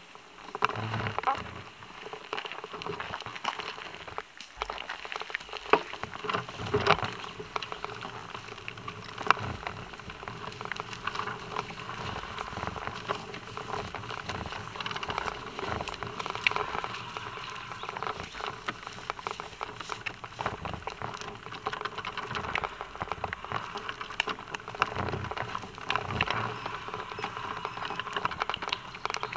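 A bicycle rolling along an asphalt path with a dense patter of ticking, mixed with the knocks of a horse's hooves as it walks on the path just ahead.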